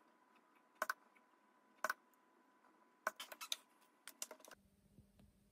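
Light, sharp clicks and taps, about one a second and then a quick flurry, as the metal needle of a solder paste syringe is dabbed onto the pads of a printed circuit board. Near the end the clicks stop and only a faint low hum remains.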